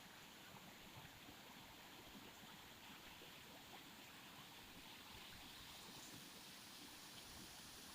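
Faint, steady sound of flowing water, a stream or trickle running without a break.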